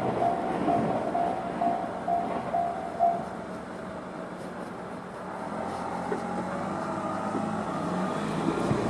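Railway level crossing's electronic warning bell (JR standard tone) dinging in a steady repeating pattern over the fading rumble of a 115-series train. The bell stops about three seconds in, once the train has cleared the crossing. Near the end a road vehicle's engine rises in pitch as it pulls away.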